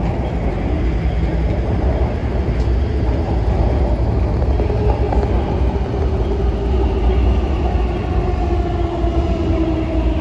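MTR Kwun Tong Line metro train running, heard from on board: a steady low rumble of wheels on rail, with a motor whine that slowly falls in pitch over the second half.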